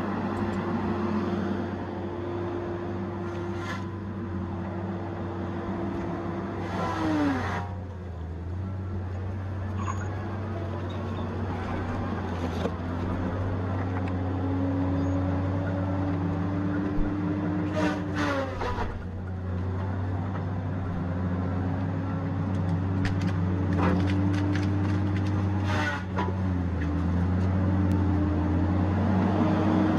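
Tigercat 870C feller buncher running under work: a steady engine hum with a higher whine that slowly climbs, then sinks sharply three times, about 7, 18 and 26 seconds in, as the machine takes load. Short crackles and snaps come with the drops.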